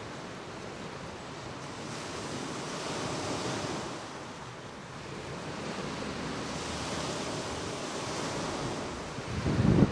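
Small Lake Michigan waves washing onto the beach, a steady rush of surf that swells and fades every few seconds. Near the end a gust of wind buffets the microphone with a loud low rumble.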